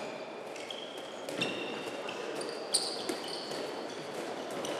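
Handballs bouncing on a wooden court floor and slapping into hands during a passing drill, mixed with short high squeaks of sneakers on the floor.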